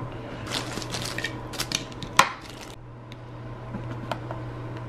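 A Crock-Pot slow cooker's glass lid is handled and set onto the crock over a plastic liner: rustling and clatter, with one sharp clack a little over two seconds in. Then come a few light clicks as the control-panel buttons are pressed to set it on low.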